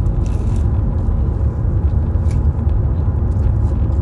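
Steady low rumble of a car running, heard inside its cabin, with a few brief crackles and rustles near the start and in the middle.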